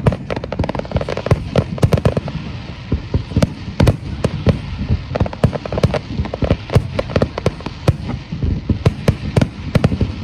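Fireworks display: aerial shells bursting in a dense, unbroken barrage, several bangs a second overlapping one another.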